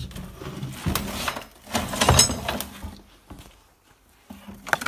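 Clatter and knocks of hard objects being handled or moved, loudest about two seconds in, with a brief metallic ring at the loudest knock.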